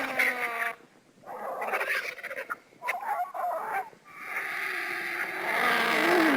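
Lappet-faced vulture calls: a short call ending just after the start, then a run of hoarse, rasping calls broken by short gaps, and from about four seconds in one long hoarse call that grows louder.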